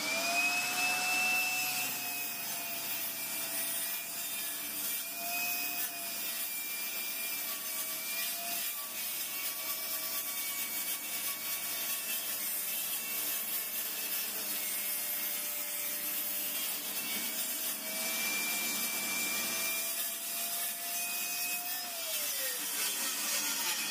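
Table saw running with a steady whine from its spinning blade while a crosscut sled carrying a clamped wooden workpiece is pushed through the cut, the pitch sagging slightly under load. Near the end the motor is switched off and the whine falls as the blade spins down.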